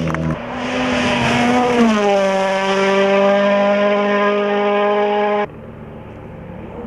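Rally car passing flat out on a gravel stage: the engine note drops in pitch as it goes by about two seconds in, then holds at high revs as it pulls away. A little over five seconds in, the sound cuts off suddenly to the fainter engine of a car far off.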